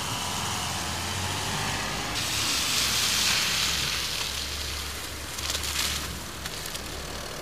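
A car driving on snow and slush: a low engine hum under the hiss of tyres on the wet road, the hiss turning abruptly louder about two seconds in.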